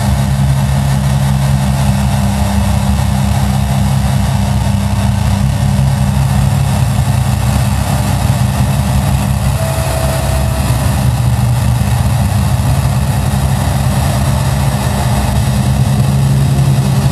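A loud, steady low drone with a hiss spread above it, unchanging throughout; a brief higher tone sounds about ten seconds in.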